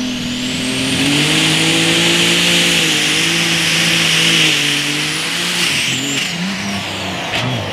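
Allis-Chalmers D21 light super stock pulling tractor's turbocharged diesel at full throttle under load, with a high turbo whistle that climbs near the start and holds steady. About six seconds in the whistle and engine note fall away as the revs drop, and a few sharp cracks follow near the end.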